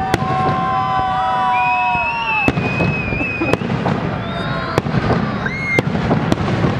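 Festival fireworks salute going off: a rapid string of sharp bangs, mixed with long, high, steady whistling tones over a crowd of voices.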